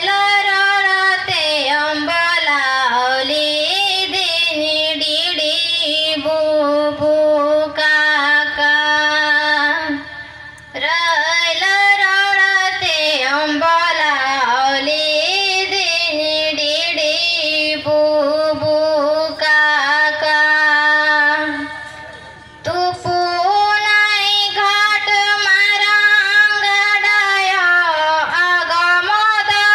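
A woman singing solo into a microphone in long, held, gliding phrases, with short pauses for breath about ten and twenty-two seconds in.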